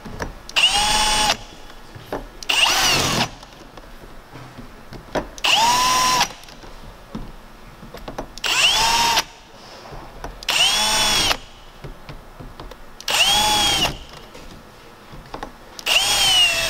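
Cordless drill with a 3/16-inch bit run in seven short bursts, about two seconds apart. Each whine rises in pitch and falls again as the trigger is squeezed and released: the bit is starting pilot holes partway into the van's metal roof through the mounting holes of the fan ring.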